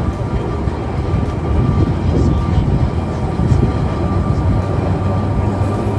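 Open boat tram running along its rails: a steady rumble of wheels and motors with a faint, steady whine.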